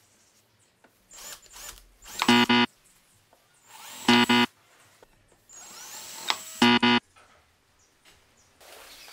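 Power drill-driver whirring in three short runs about two seconds apart, each a quick double pulse of the trigger, driving wood screws into the corner joint of two boards. Quieter handling noise comes between the runs.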